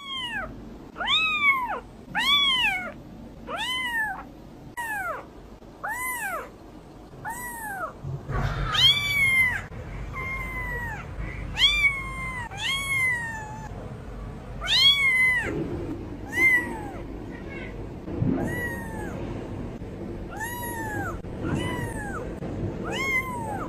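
A very young kitten, between ten days and a month old, meowing over and over: about twenty short, high, thin calls, each rising and then falling in pitch, roughly one a second, with a few longer and flatter.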